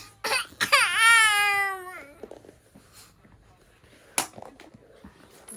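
A baby's cry: one loud, long wail lasting a little over a second, with a few short sharp noises just before it and a single sharp knock about four seconds in.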